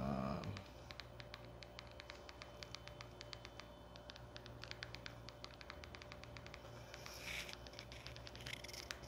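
Light, rapid, irregular clicking over a steady electrical hum, thinning out after about six seconds, with a short rustle about seven seconds in.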